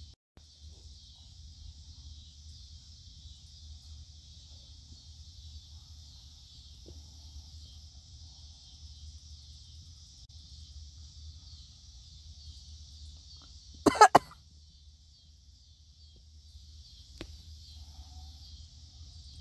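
A single short cough in two or three quick bursts about fourteen seconds in, over a steady faint high hiss.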